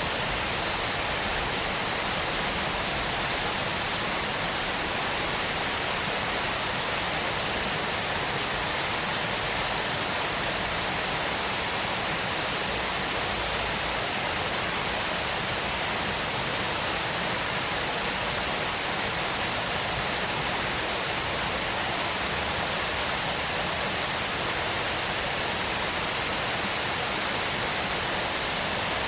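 Waterfall: a steady, unbroken rush of falling water. A few short high chirps come in near the start.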